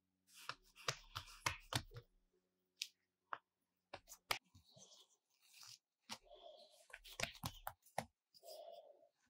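Hands folding and pressing soft brioche dough on a work mat: quiet sticky pats, taps and light rustling, with a quick cluster of sharp clicks in the first two seconds.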